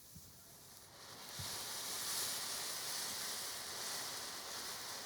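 A lit ground firework hissing, swelling about a second in to a steady high sizzle.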